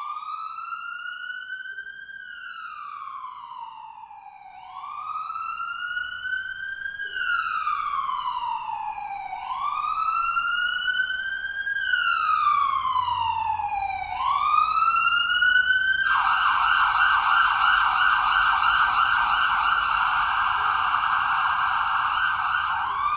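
Electronic emergency-vehicle siren in a slow wail, rising and falling about every five seconds for four cycles, then switching to a fast yelp for the last several seconds before rising into a wail again.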